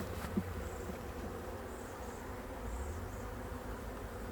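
Honey bees buzzing steadily around an open hive during a frame inspection, with one short knock shortly after the start.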